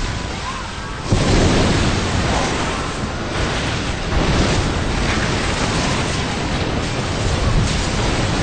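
Sea waves surging and breaking, with wind noise on the microphone; a loud surge comes about a second in and another about four seconds in.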